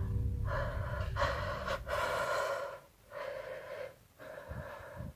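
A person breathing heavily: about five breaths in a row, each under a second, with short pauses between them.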